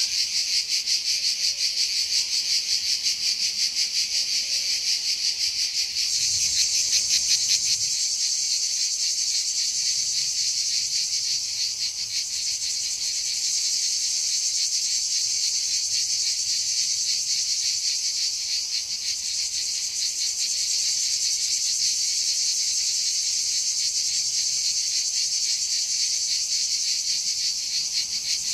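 A dense, steady insect chorus: a high, shrill buzz with a fine rapid pulse, holding on throughout with a slight rise in level about six seconds in.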